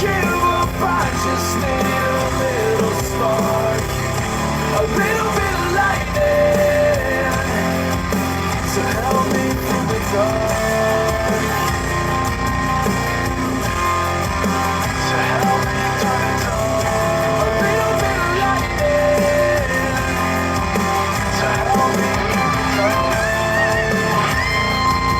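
Rock song playing: a singer over electric guitar and a full band.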